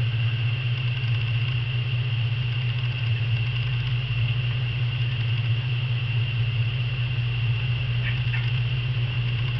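A steady low hum with a thin, high steady whine above it, unchanging throughout.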